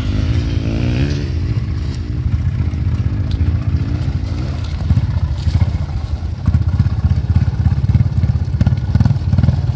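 Four-wheeler ATV engine running under load, revving up and down as the machine churns through a deep mud hole.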